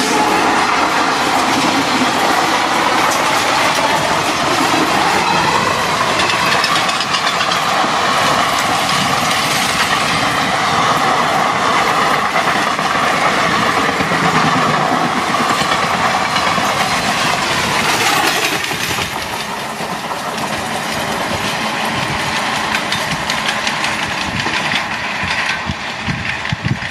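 Passenger coaches of an Indian Railways express rushing past close by at speed: a loud steady rumble of wheels on rail with clickety-clack over the rail joints. The sound drops about two-thirds of the way through as the end of the train passes and it draws away.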